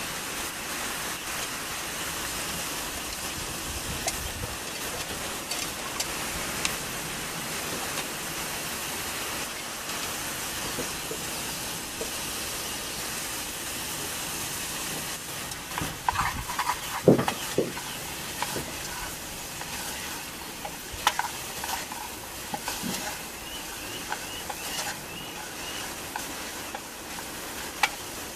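Chopped onions frying with a steady sizzle in the metal pan of a Swedish army M40 mess kit, with scattered scrapes and clicks of a utensil stirring them against the pan and a cluster of louder knocks a little past the middle.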